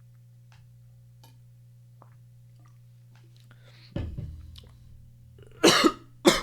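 A man with the hiccups: faint small clicks, a sudden low sound about four seconds in, then a really raspy cough in two loud bursts near the end, which he notes was not a burp.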